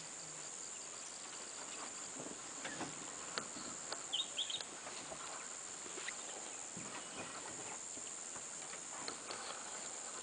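Quiet forest ambience: a steady high insect drone, a few short bird chirps about four seconds in, and scattered faint rustles and crackles in the undergrowth.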